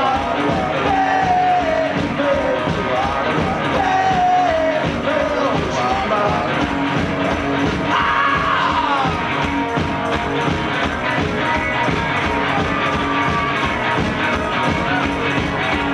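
Live garage rock duo playing: electric guitars over a fast steady drum beat, with a sung lead vocal in the first several seconds that drops out as the playing goes on instrumentally.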